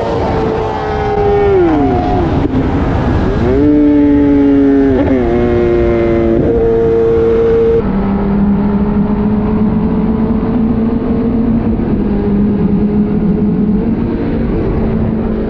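Kawasaki ZX-10R's inline-four engine at high speed, heard from the rider's seat over rushing wind. About a second and a half in, the revs fall sharply; they jump back up about two seconds later and step again near five seconds, as the gear indicator goes up to 4th and drops back to 3rd, which the rider could not explain. From about eight seconds the engine holds a steady drone.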